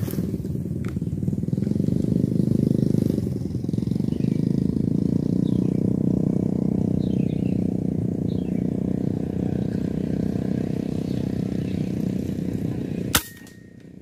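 An engine runs steadily throughout. About 13 seconds in, a single sharp crack of an air rifle shot sounds, and the engine sound cuts off at that moment.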